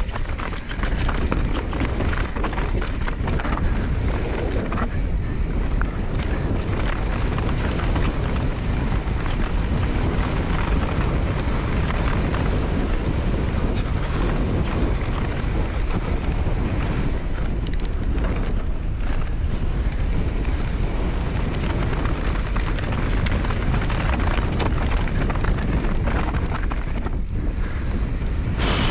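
Wind buffeting the microphone of a mountain bike descending fast, over the steady rumble of knobbly tyres on a rocky dirt trail, with a constant run of small knocks and rattles from the bike over rocks and bumps.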